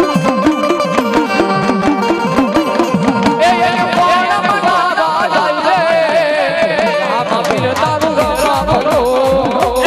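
Live folk devotional music: hand drums keeping a fast, steady beat under held melody tones, and from about three seconds in a man's voice singing over them. Deep bass beats join near the end.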